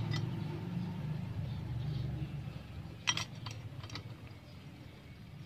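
Light metallic clinks from a miniature stainless steamer pot as the tiny banana-leaf-wrapped rice cakes are lifted out of it: one click near the start, then a quick cluster of about four a little after three seconds in, over a faint low hum that fades away.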